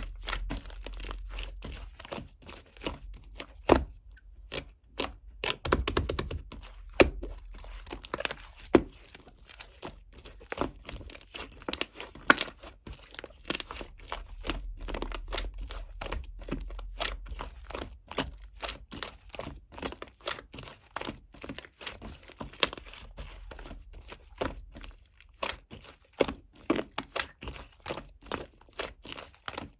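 Irregular crunching and crackling, several sharp crackles a second, with a couple of brief pauses, about four and twenty-five seconds in.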